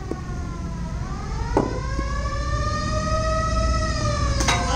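A siren wailing: its pitch slides down, turns about a second in, rises and then holds high. A few sharp knocks sound over it, the loudest about a second and a half in.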